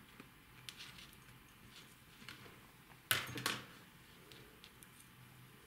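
Metal knitting needles of a circular needle clicking and tapping softly as stitches are worked, with the light rustle of yarn; a louder double click about three seconds in.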